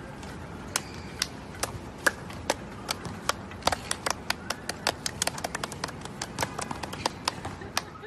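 Hand claps, at first about two a second and then faster and uneven from about halfway through, over steady outdoor background noise.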